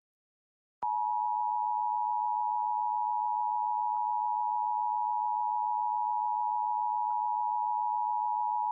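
Emergency Alert System attention signal, the two-tone alarm sounded for a Required Monthly Test. It starts about a second in and holds as one unbroken, unchanging tone.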